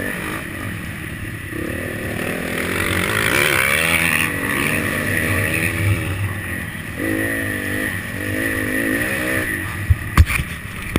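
Motocross bike engine revving up and falling back again and again as it is ridden around the track, shifting with the throttle. Two sharp knocks near the end are the loudest sounds.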